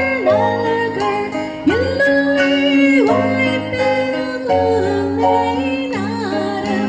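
A Tamil song: a singing voice over instrumental backing with steady bass notes.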